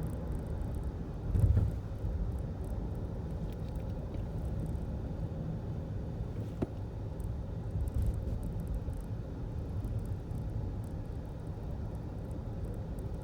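2019 Lexus ES driving, with a steady low road rumble. There is a louder thump about a second and a half in, and a couple of short sharp clicks or knocks later: the rattle the owner is recording.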